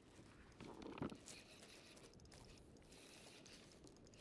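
Near silence, with one faint, brief sound about a second in.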